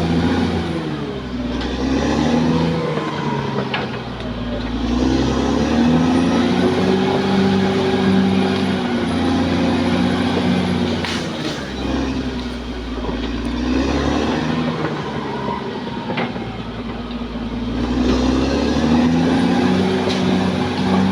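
Caterpillar D6R XL bulldozer's diesel engine running under heavy, changing load: its pitch sags and climbs back again and again, with a few sharp metallic clanks.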